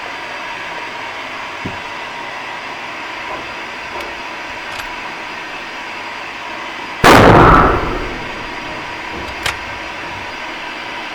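A single shot from an Uberti 1873 Sporting Rifle, a lever-action rifle, about seven seconds in, dying away in under a second. A short sharp click follows about two seconds later.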